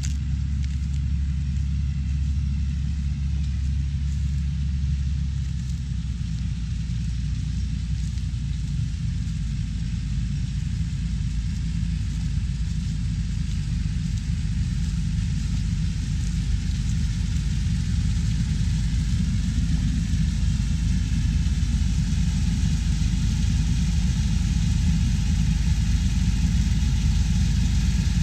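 Farm machinery engine running steadily, a deep rumble that grows gradually louder toward the end.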